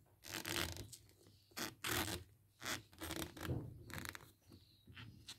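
Handling noise of a smartphone being moved and repositioned by hand: irregular short scrapes and rubs of fingers and sleeve against the phone near its microphone.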